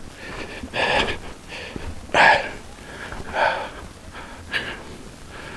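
A person breathing heavily, loud breaths about once a second.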